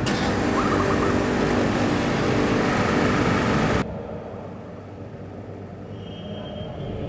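Steady roar of city traffic ambience that cuts off abruptly a little past halfway, leaving a much quieter low rumble.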